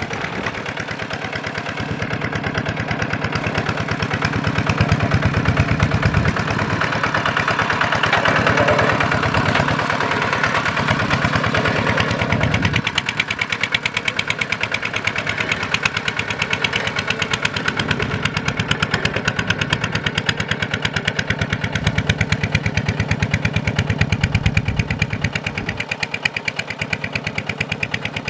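Small Kubota single-cylinder diesel engine running, with a fast, even firing beat. It gets louder a few seconds in and eases back a little about halfway through.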